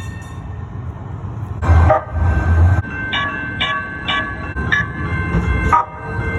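CTrain light-rail train's warning bell ringing in short, quick strokes, about two a second, over the low rumble of the train running.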